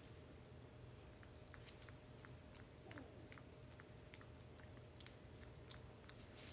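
Maltipoo puppy licking and chewing a supplement off a person's fingertips: faint, quick, wet smacking clicks, a few each second.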